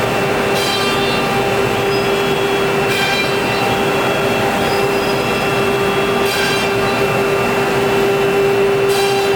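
CNC nesting router cutting wood cabinet panels: the spindle runs with a steady hum over the noise of the bit cutting, and a brief high-pitched hiss swells and fades about every three seconds.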